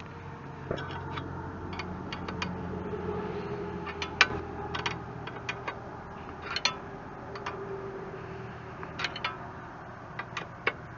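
Scattered, irregular metal clicks and taps of a wrench working on the backhoe's control-linkage bolts, over a low steady hum.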